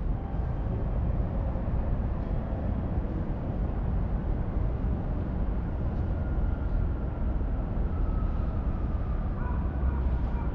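Street ambience of a city: a steady low rumble of passing vehicles, with a faint high whine joining near the end.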